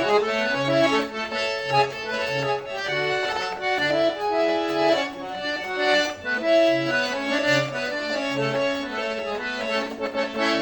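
Accordion playing a tune: a moving right-hand melody over bass notes on a steady beat.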